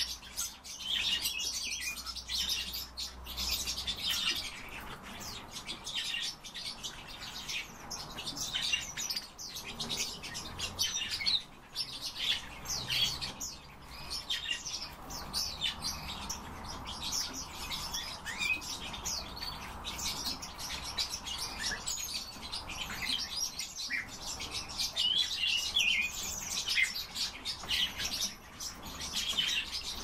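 A group of caged small songbirds chirping and calling, many short overlapping chirps and brief trills, with some wing fluttering.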